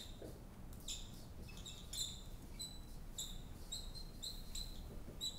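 Dry-erase marker squeaking on a whiteboard while words are written: about a dozen short, high squeaks in quick strokes.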